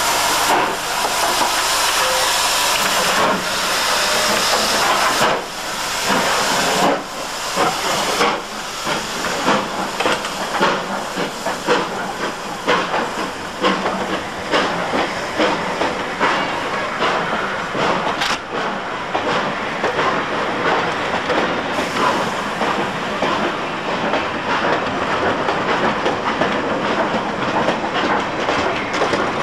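Steam locomotive pulling away, with a loud hiss of steam and heavy exhaust beats a second or more apart at first. Its carriages then roll past close by, the wheels clicking over the rail joints faster and faster.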